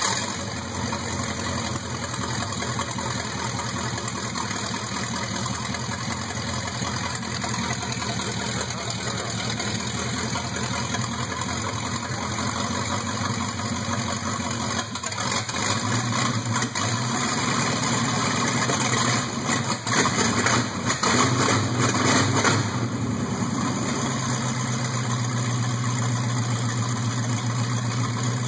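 1950 Ford flathead V8 running through open Sanderson headers with no mufflers, on its first run after ten years laid up, with fresh head gaskets and a rebuilt carburettor. It idles steadily, then the throttle is blipped at the carburettor in uneven surges through the middle, before it settles back to a steady idle.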